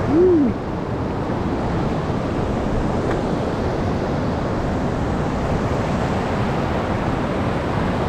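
Steady rush of a mountain stream running high in spate. At the very start a short voice-like tone rises and falls once.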